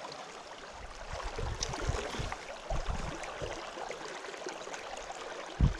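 Small creek's current running steadily over riffles, a rushing hiss, with a few dull low thumps in the middle and one just before the end.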